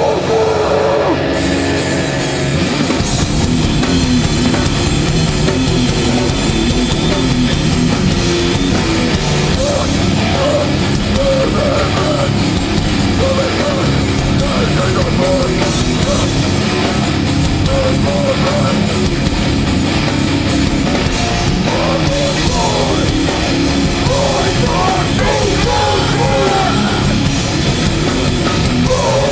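Hardcore band playing live at full volume: distorted electric guitars and a drum kit, with the song kicking in about a second in.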